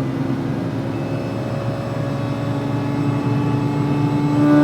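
Mazda RX-8's Renesis twin-rotor rotary engine pulling hard under load in gear, its pitch rising slowly and getting louder toward the end. The driver hears it bogging down and suspects a misfire.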